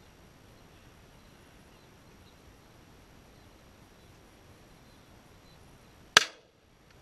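A single shotgun shot about six seconds in, sharp and very loud, with a short tail as it dies away. Before it there is only a faint, steady outdoor background.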